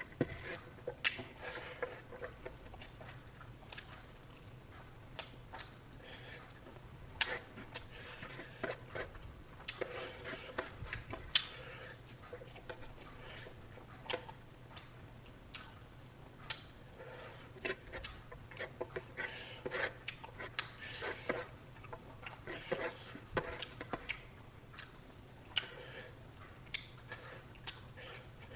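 Irregular clicks and clinks of utensils against dishes, with chewing, over a faint low steady hum.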